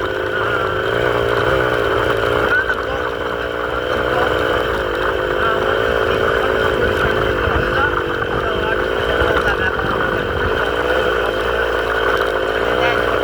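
Vehicle engine running steadily, its revs rising and falling a little.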